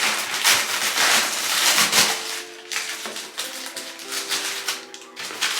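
Background music, with irregular rustling bursts over it.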